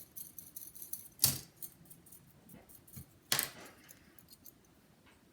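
Two short puffs of air blown through the fins of a laptop CPU heatsink to clear out dust, about two seconds apart, with light metallic clicks and rattles from the heatsink being handled.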